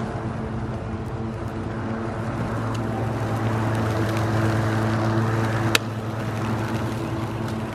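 WORX 24-volt, 14-inch cordless electric lawnmower running and cutting grass, a steady motor hum. It grows louder as the mower swings close in the middle, and one sharp click comes a little over halfway through.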